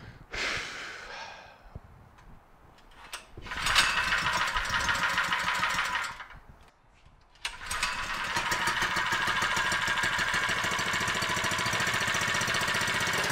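Brand-new Predator 79cc single-cylinder four-stroke engine being pull-started on its first run: a pull about half a second in does not catch, a second pull a few seconds in fires it for about two seconds before it dies, and a pull at about seven and a half seconds catches and it keeps running steadily.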